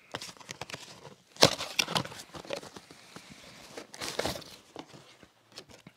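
Crinkling and rustling of a vacuum cleaner bag's packaging being handled, with scattered small clicks and two louder spells, about a second and a half in and about four seconds in.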